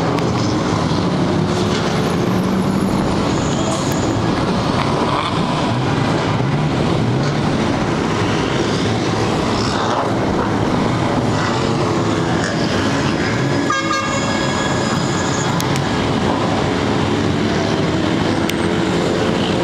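Engines of a convoy of drift cars driving through a city street, heard from high above as a steady, dense engine noise whose pitch rises and falls as the cars accelerate. A brief high tone sounds about two-thirds of the way through.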